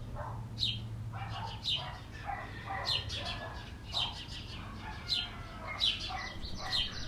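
Small birds chirping, short falling chirps about once a second, with chickens clucking softly beneath.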